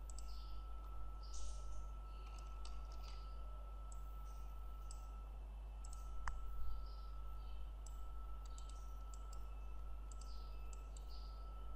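Computer mouse clicking now and then, with a sharper knock about six seconds in, over a steady low electrical hum and a faint constant high whine.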